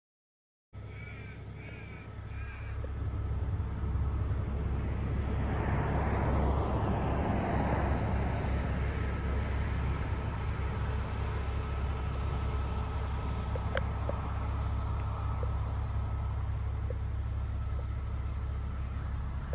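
Kenworth tanker truck's diesel engine idling with a steady low hum. A crow caws a few times near the start, and a louder rush of noise swells around six seconds in.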